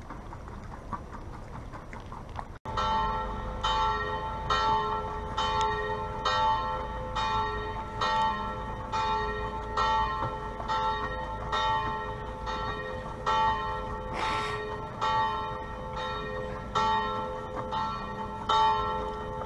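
Church bells ringing, struck about twice a second with a steady hum of overlapping tones between strikes. The ringing starts abruptly about two and a half seconds in, replacing a low background noise.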